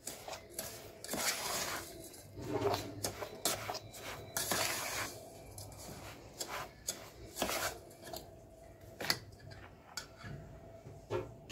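A spoon stirring and scraping a crumbly crumb mixture in a stainless steel bowl: irregular gritty scrapes with a few sharp clinks of the spoon against the metal.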